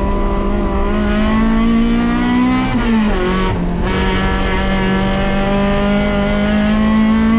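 Toyota AE86's four-cylinder engine pulling hard at high revs, heard from inside its stripped cabin. The pitch climbs slowly, the revs dip sharply about three seconds in, then it pulls steadily high again.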